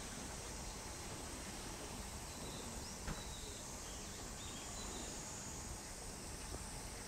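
Faint outdoor evening ambience: a steady high insect-like hiss under a low rumble, with a few faint bird chirps around the middle and a single small click about three seconds in.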